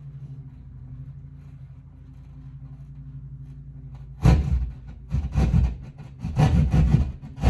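A hand-held blade sawing through the drywall to cut an outlet box hole. The cutting starts about four seconds in, in rough rasping strokes roughly once a second, over a steady low hum.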